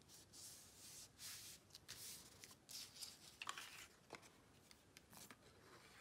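Faint rustling and sliding of cardstock pieces handled by hand, with a few soft ticks as paper is moved and pressed together.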